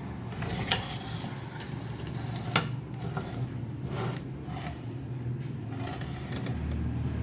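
Several sharp clicks and knocks, the loudest about two and a half seconds in, over a steady low hum.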